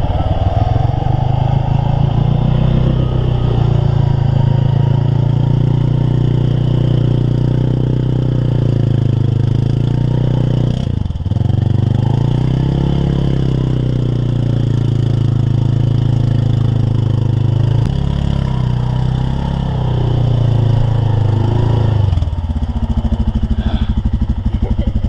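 A vehicle engine running hard at high revs, holding a steady pitch with small surges. It dips briefly about eleven seconds in, then drops to a lumpy, pulsing low-rev run near the end.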